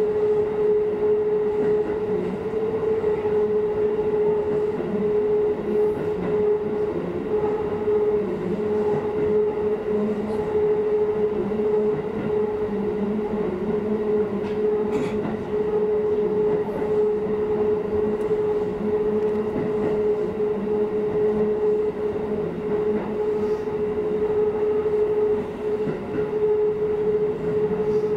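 Shin-Keisei electric commuter train running at speed, heard from inside the front car: steady running noise with a constant high hum over it.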